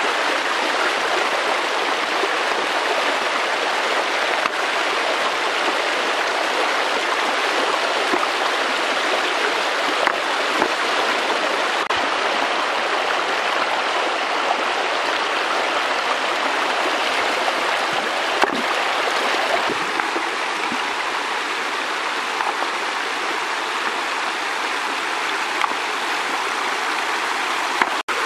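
Shallow river rushing over stones, a steady rush of flowing water with a few faint short knocks here and there.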